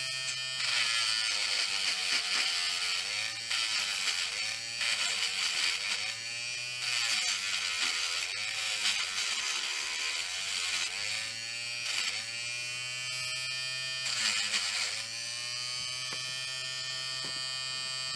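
Small low-powered grinder with a wire-brush head running continuously, its motor pitch sagging and recovering again and again as the brush is pressed onto the metal lock parts, with stretches of louder scratching as it scrubs off rust and deposits.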